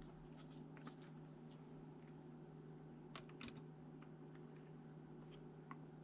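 Near silence: a steady low hum with a few faint, short clicks and taps, the clearest a little after three seconds in, of the kind small hard parts make when handled.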